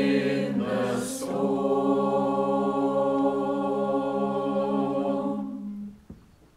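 Mixed-voice choir singing the last word of a line, with a sung 's' sound about a second in, then holding one long final chord that dies away about six seconds in.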